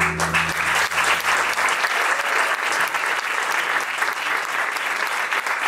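Audience applauding at the end of a song, while the last chord of a nylon-string acoustic guitar rings out and fades in the first two seconds.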